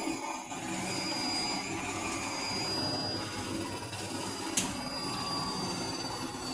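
Electrolux W555H professional washing machine running, a steady mechanical hum with a thin high whine over it and one sharp click about four and a half seconds in.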